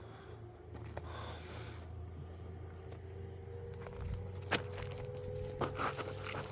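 Footsteps on stony mountain ground: a few scattered crunches and taps, over a steady low hum.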